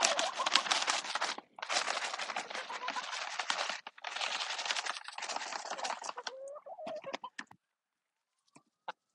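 Dried black soldier fly larvae rattling in their plastic pouch as they are shaken out to the hens, a dense rustling rattle with two brief breaks that stops about seven seconds in, with hens clucking.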